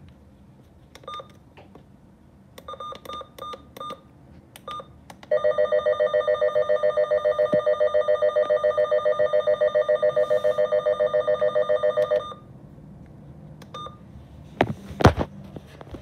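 Short key beeps from an MD319 weather alert radio as its buttons are pressed. Then, about five seconds in, its alert siren sounds as a test, a loud, rapidly pulsing tone that lasts about seven seconds and cuts off suddenly. A few handling knocks follow near the end.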